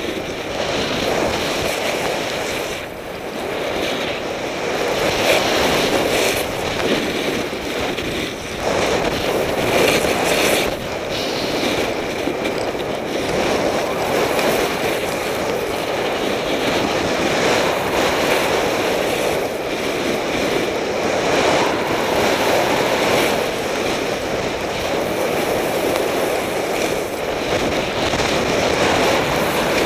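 A snowboard sliding and carving over snow, with wind rushing across the camera microphone: a steady noisy rush that swells and eases every few seconds.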